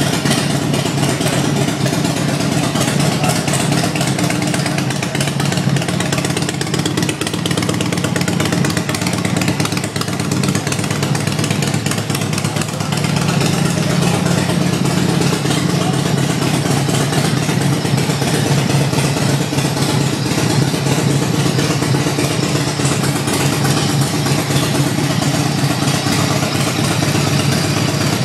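Racing motorcycle's engine running steadily on a stand, being run to clean it out for winter storage.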